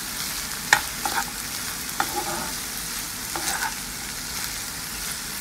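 Diced yam, raw plantain and long beans sizzling in oil in a nonstick pan as a metal spatula stirs them, with a few sharp clicks of the spatula against the pan. The cooking water has boiled off and the vegetables are frying dry toward light brown.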